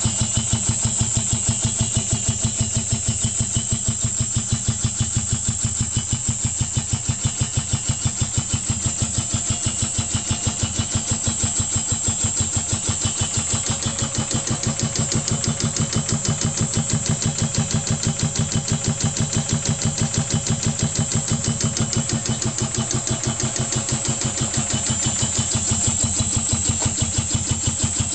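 Rebuilt piston air compressor pumping steadily, with a fast, even beat. It is driven by a 4 HP three-phase electric motor run at half speed (25 Hz) from an inverter.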